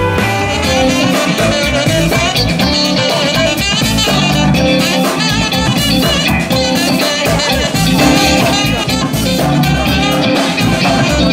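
Upbeat music with drums and guitar keeping a steady beat.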